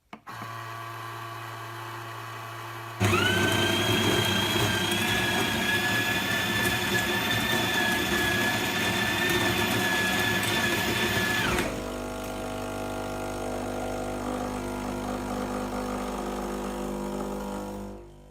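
Krups automatic espresso machine at work. About three seconds in, its built-in grinder starts up: a loud grinding run with a steady high whine that lasts about nine seconds. It then cuts off to a lower steady hum with a low buzz, typical of the brewing pump, which fades out near the end.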